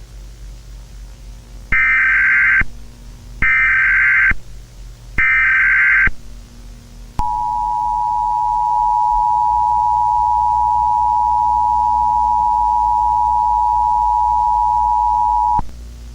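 Three harsh electronic beeps about a second long each, followed by a long steady test tone near 1 kHz that lasts about eight seconds and cuts off sharply. A low electrical hum and hiss sit underneath.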